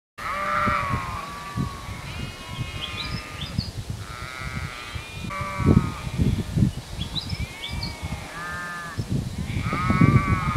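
A mob of ewes and lambs bleating, calls of different pitches repeating and overlapping every second or two, over irregular low rumbling.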